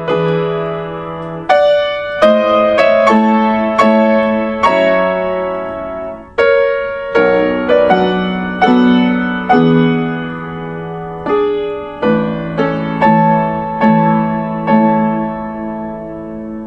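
Background music: solo piano playing a slow melody, struck notes ringing and fading.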